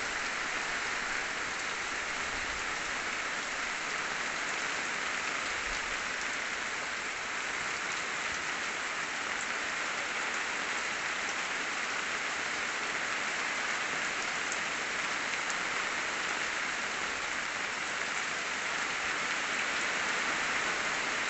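Steady rain falling, an even hiss with no pauses or changes.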